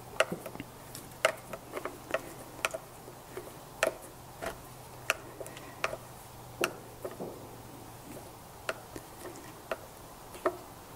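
Sharp, irregular clicks and ticks, about one or two a second, from a hand screwdriver turning and seating the small screws of a motorcycle windscreen's mounting brackets as they are snugged up.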